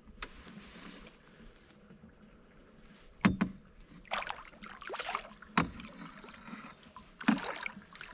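Water splashing and sharp knocks against the boat as a hooked channel catfish is brought alongside and landed. A few hard knocks come about three seconds in and again past five seconds, with rushing splashes between them and near the end.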